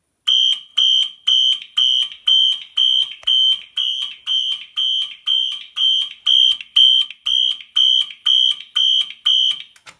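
Fire alarm horn sounding in march time: a loud, high-pitched tone pulsing evenly about twice a second, about nineteen pulses, then cutting off suddenly near the end. The pulsing is the march-time pattern of a fire alarm zone in alarm.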